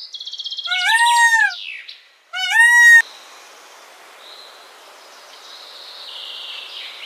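Two loud arching animal calls, each about half a second, with a fast high trill over the first second and a half; from about three seconds in, a steady hiss with faint high chirps.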